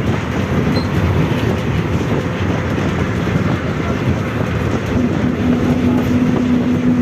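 Volkswagen 17-230 OD bus running on the road with a heavy, steady low rumble. About five seconds in, a loud steady tone comes in and holds: the rear differential growling loudly.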